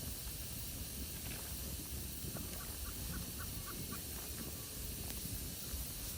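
Wood campfire burning with a steady hiss and a few faint crackles. A quick run of about six faint high chirps comes about two and a half seconds in.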